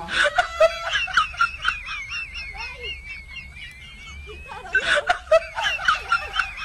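People laughing and shrieking in two loud bursts, one at the start and another about five seconds in, with high-pitched chatter between them.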